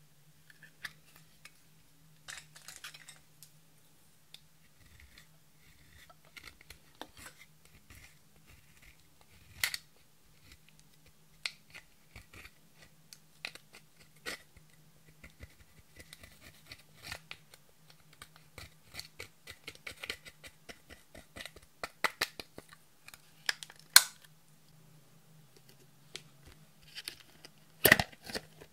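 Plastic eyeshadow compact being handled and its pressed powder scraped and crumbled out with a stick: scattered light scratching and tapping, broken by several sharp plastic clicks. The loudest clack comes near the end as a plastic slime tub is handled. A faint steady low hum lies underneath.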